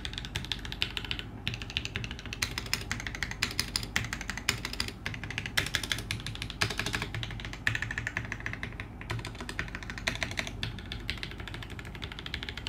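Typing on a polycarbonate TGR Alice mechanical keyboard built with an FR4 plate, lubed Shiro switches and GMK keycaps. It makes a quick, irregular run of key clacks with a few short pauses.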